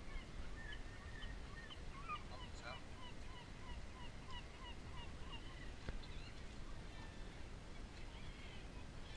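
A bird calling faintly in a fast series of short, falling notes, about three a second, from about two seconds in to about six seconds in, over a steady low rumble.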